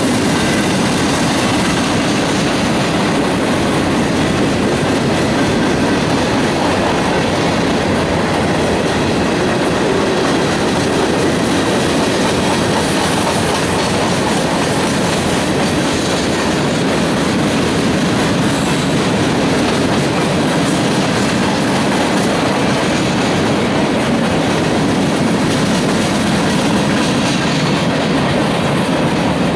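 Freight cars of a long mixed train rolling past close by, with a steady, loud noise of steel wheels running on the rails.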